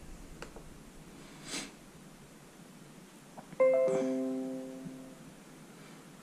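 Windows 10 notification chime from the laptop's speakers: a short pitched chord sounded once a little past halfway and ringing out for about a second and a half, signalling a OneDrive notification. A brief soft swish comes about a second and a half in.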